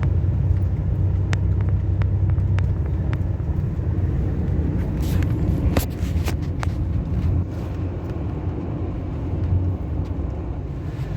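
Strong gusty wind buffeting the microphone: a loud, steady low rumble, with a few faint clicks.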